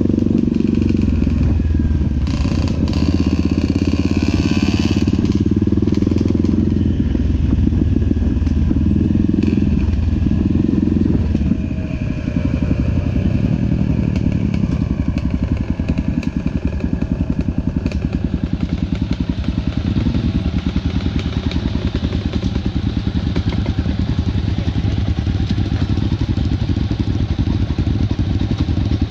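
Honda XR650 single-cylinder four-stroke dirt bike engine running as it is ridden, picked up close by a camera on its own handlebars. The level dips about twelve seconds in as the rider eases off, then runs on slightly lower and less even.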